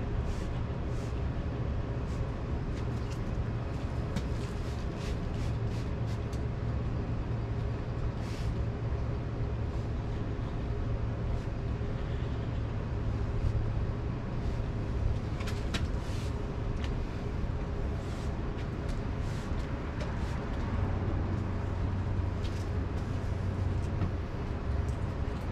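Pressure washer's gas engine running steadily, a constant low hum with a hiss over it and a few faint clicks.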